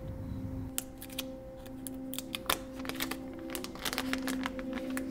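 Thin plastic protective wrap crinkling and crackling in irregular clicks as it is handled and peeled off a phone, over soft background music with held tones.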